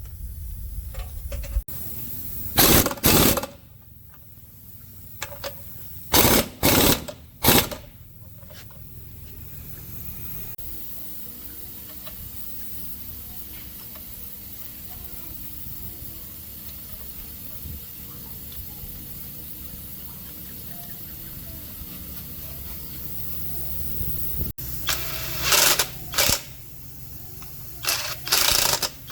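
Short bursts of a pneumatic impact wrench rattling, in pairs and threes of about half a second each, as nuts or bolts are run on or off the truck axle. A steady low workshop hum lies between the bursts.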